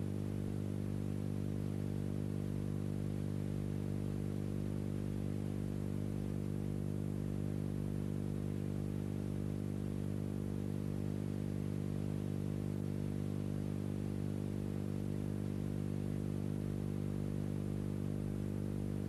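Steady electrical hum with a stack of unchanging overtones, over an even hiss, at a constant level. No other sound.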